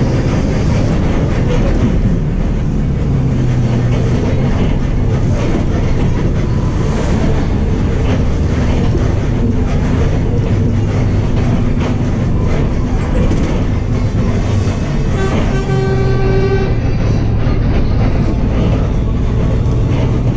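Higer KLG6770G bus engine running under way, heard from inside the passenger cabin together with road rumble; the engine note shifts slightly up and down. About fifteen seconds in, a single steady pitched tone sounds for about a second and a half.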